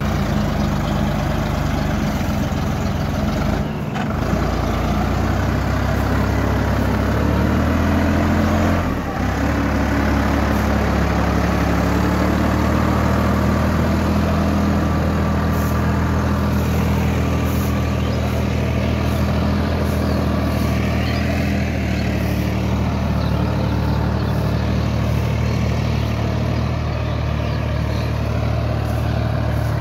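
Solis 5015 4WD tractor's diesel engine running steadily under load while hauling a loaded trailer through deep mud, with two brief dips in sound about 4 and 9 seconds in.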